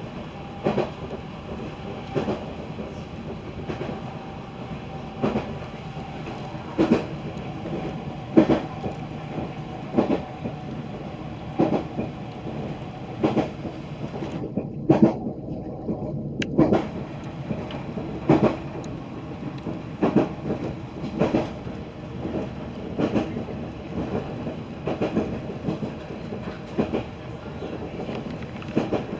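Passenger train running along the line, heard from inside the carriage: a steady rumble with the wheels clicking over rail joints at a regular beat, about every second and a half.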